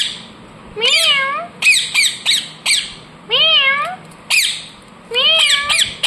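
Pet rose-ringed (Indian ringneck) parakeet calling: a string of short, sharp, falling squawks, mixed with three longer wavering meow-like calls that rise, dip and rise again.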